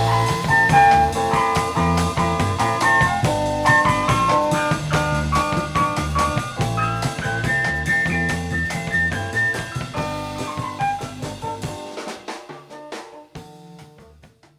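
Band song with a drum kit, bass and melodic instruments, fading out over the last few seconds. The bass drops away about twelve seconds in.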